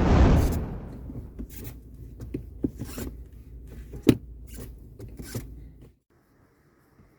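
Ford Focus Mk4 gear stick being worked back and forth inside the car, giving irregular creaks and clicks over a low steady rumble: the squeak of a dry or worn gear-lever mechanism. It opens with a loud short rush of noise and cuts off suddenly about six seconds in.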